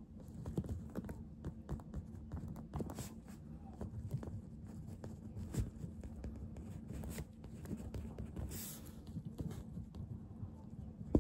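Pen writing on a greeting card: a run of small, irregular scratches and taps. There is a brief hiss about eight and a half seconds in and a sharp tap at the very end.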